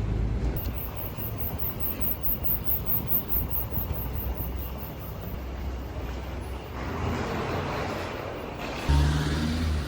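Low steady rumble of a moving vehicle, with wind on the microphone; a deeper, louder hum comes in near the end.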